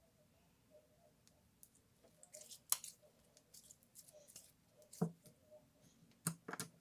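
Clear slime being handled with the fingers: faint, irregular sticky squishes and clicks, a few louder ones in the second half.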